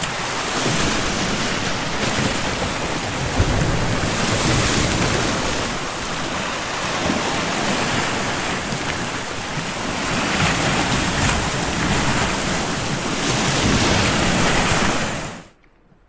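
Sea swell washing in over shoreline rocks, a steady rush that swells and eases over several seconds, then cuts off abruptly near the end.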